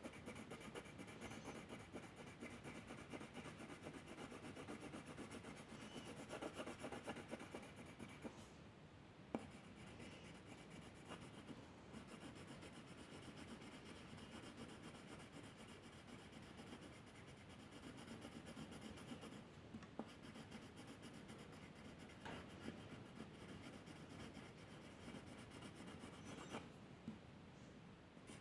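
Faint scratching of a pen or pencil drawing strokes on paper, with a single sharp click about nine seconds in.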